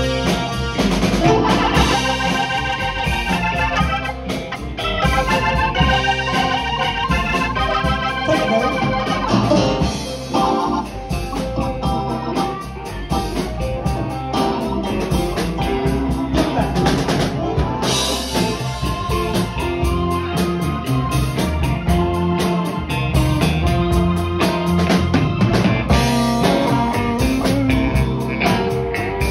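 Live band playing an instrumental section: an organ-voiced keyboard solo on a Roland BK-9 arranger keyboard over drum kit and the rest of the band, with no singing.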